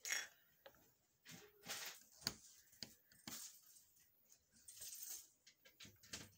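Faint handling noises: several light clicks, knocks and scrapes as a soldering iron is picked up and set into its stand.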